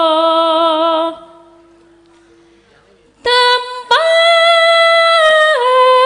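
A Javanese sinden sings a slow solo tembang. A long held note with vibrato fades out about a second in. After a pause of about two seconds she starts a new long held note, which steps down in pitch near the end.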